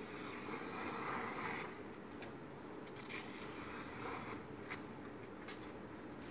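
A freshly sharpened knife blade slicing through a sheet of paper in several strokes, each a faint scraping hiss lasting about a second: a paper test of the new edge.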